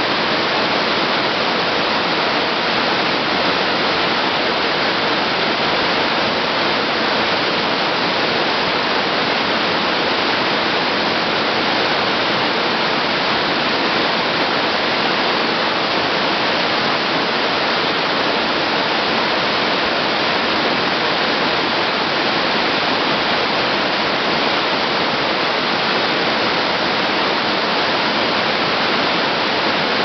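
Cascading waterfall pouring over granite boulders: a steady, loud rush of falling and splashing water, unchanging throughout.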